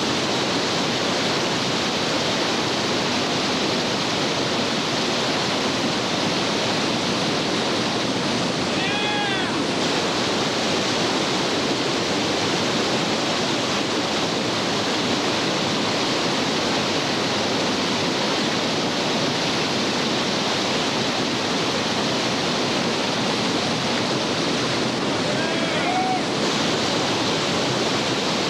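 Steady rushing of whitewater rapids on a creek. A short pitched call sounds over it twice, about a third of the way in and again near the end.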